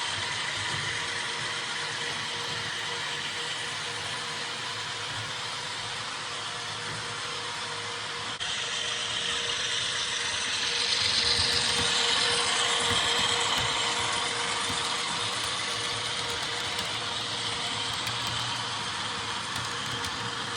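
HO scale model train running on a layout: a steady engine-like running sound with wheel and track noise, growing louder about halfway through as the train draws closer.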